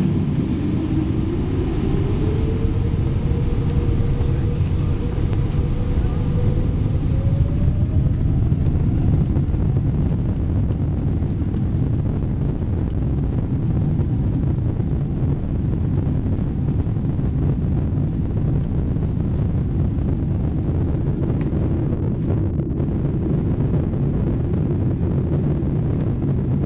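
Boeing 777 takeoff roll heard from inside the passenger cabin: a steady, heavy rumble of the engines and the runway, with an engine whine that rises in pitch over the first few seconds and again about seven seconds in as the engines spool up to takeoff thrust.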